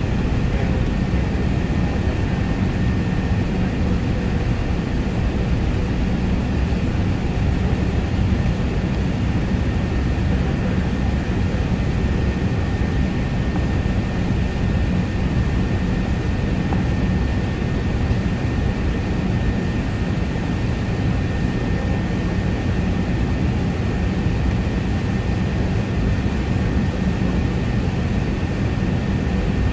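Steady cabin noise aboard an Airbus A380 taxiing onto the runway: a low rumble from the running Rolls-Royce Trent 900 engines and rushing air, with a thin steady whine above it.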